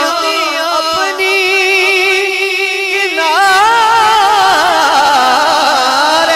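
Male naat reciter singing unaccompanied-style devotional verse into a microphone, drawing out a long, wavering, ornamented note with pitch slides, over a steady held low tone.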